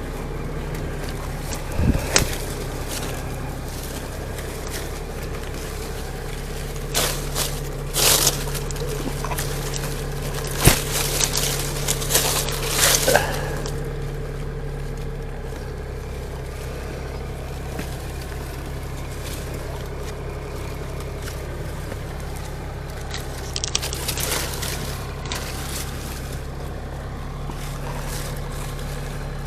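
Old tractor engine running steadily, with scattered scraping and crackling of branches and vines.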